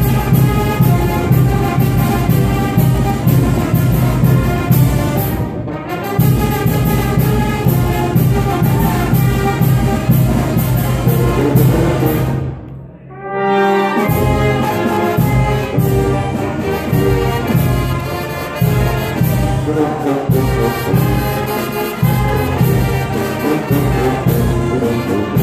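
Brass band playing dance music, trumpets and trombones over a steady low bass line. The music breaks off briefly about six seconds in, and again for about a second near the middle before it starts up again.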